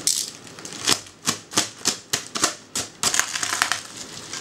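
Plastic courier mailer being cut and torn open by hand: a quick, irregular run of sharp snaps and clicks, then about three seconds in a short stretch of crinkling plastic.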